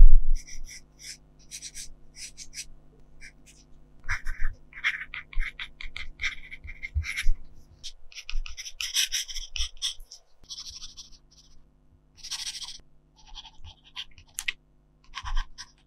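Graphite pencil (Derwent Graphic 4B) scratching across sketchbook paper in short, irregular strokes as it draws and writes, with a brief knock at the very start.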